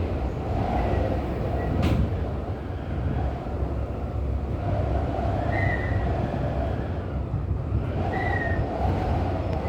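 Cable car gondola travelling along its cable: a steady, rolling rumble mixed with wind, with a click about two seconds in and brief faint whines.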